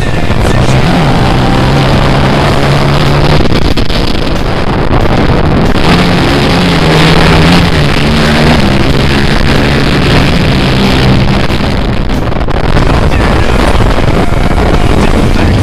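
Sport quad (ATV) engines running hard as the quads drag race across sand. The engine pitch climbs and drops in steps through the gears.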